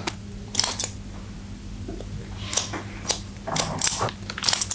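Barber's hair-cutting scissors snipping through wet hair: a couple of quick snips about half a second in, a short pause, then a run of snips in quick succession through the second half.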